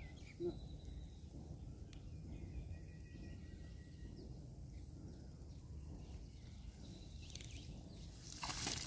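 Quiet outdoor background with a steady low rumble and a few faint bird chirps. Near the end comes a rising splashing, dripping hiss as the wet cast net is hauled up out of the pond water.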